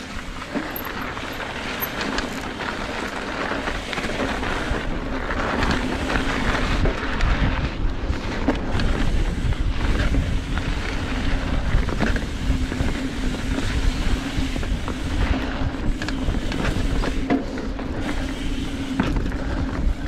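Trek Fuel EX 7 full-suspension mountain bike ridden along a dirt trail, heard from a GoPro: wind buffeting the microphone, the tyres rolling over the ground with a steady low hum, and the bike rattling and knocking over bumps.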